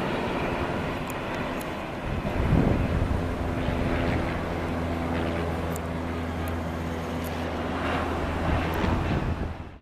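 Airbus A321 jet landing: a steady rush of engine noise with a low hum, swelling in loudness about two and a half seconds in as the main wheels touch down, then running steadily through the rollout before cutting off abruptly.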